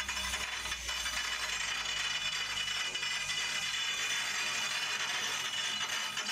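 Steady, high-pitched metallic ringing and grating of stone being shaped with an electric tool on a stone mortar (cobek).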